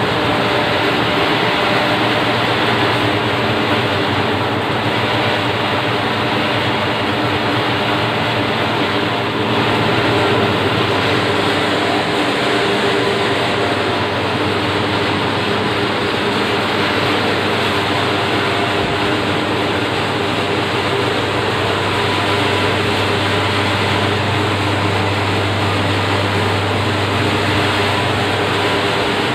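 Bakery machinery running: a loud, steady mechanical drone with a low hum underneath.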